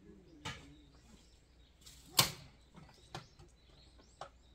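A few sharp knocks and clacks of camping gear being handled and unloaded, four in all, the loudest about two seconds in.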